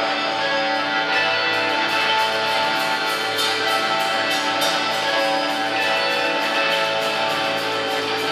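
Live rock band playing loud, with long held electric guitar chords over a drum kit's cymbal or hi-hat struck steadily about three times a second.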